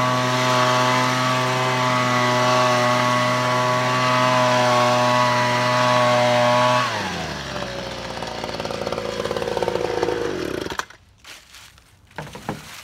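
Handheld two-stroke leaf blower running at a steady high throttle. About seven seconds in the engine note drops and keeps falling in pitch as the engine and fan wind down, stopping about four seconds later. A few light knocks follow near the end.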